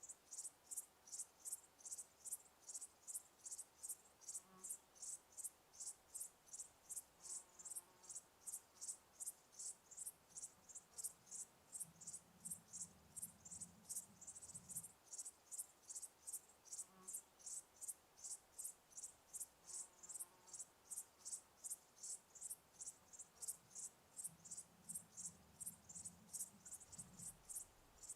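A cricket chirping in a steady, even rhythm of about two and a half high-pitched chirps a second.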